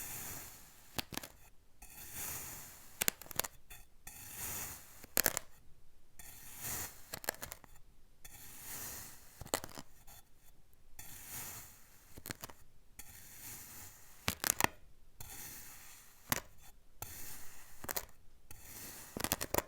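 Kinetic sand being cut and crushed: irregular crunching and scraping strokes, some drawn out and some short, with sharp clicks here and there and brief quiet gaps between them.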